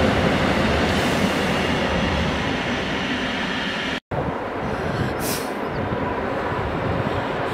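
Passenger coaches of a steam-hauled train rolling across a steel girder railway bridge: a dense rumble that slowly eases as the last coach passes. It breaks off suddenly about four seconds in, and a steadier, more distant train rumble carries on.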